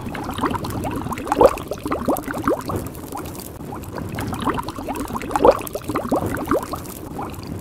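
Bubbling, gurgling water sound effect: a dense run of small bubble blips, with two louder gulps about a second and a half in and again about five and a half seconds in.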